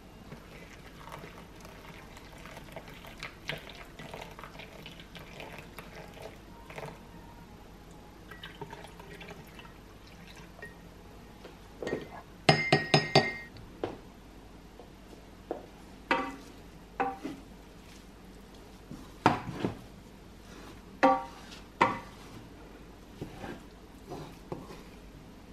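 A ceramic spoon in a china cup: soft scraping and light taps at first, then a quick run of loud ringing clinks about halfway through as it stirs a chocolate drink against the cup's sides, followed by several separate clinks.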